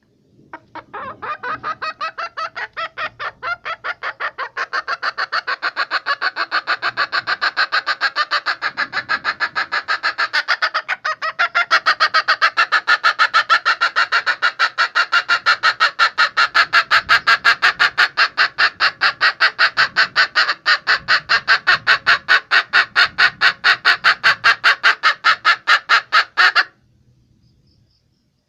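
Female fowl lure call: rapid, evenly repeated hen-like clucking, about four or five clucks a second, that grows louder twice and then cuts off abruptly near the end.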